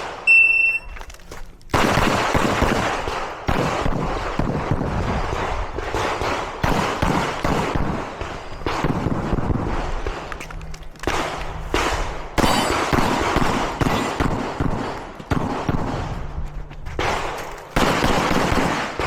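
A shot timer beeps once, then, under two seconds later, rapid 9mm pistol fire from a Glock 34 begins and goes on in fast strings broken by short pauses as a match stage is shot.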